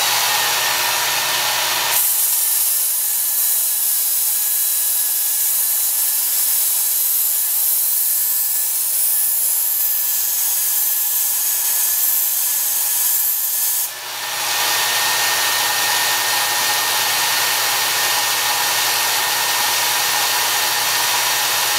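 Work Sharp Ken Onion Edition electric belt sharpener running with a knife edge held against the abrasive belt, a steady grinding hiss. It breaks off briefly about fourteen seconds in, then resumes. The heel and tip of the blade are being worked to raise a burr there.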